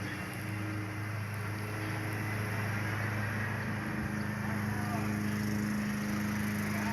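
A vehicle's engine running with a steady low hum that holds one pitch and grows a little stronger in the first couple of seconds.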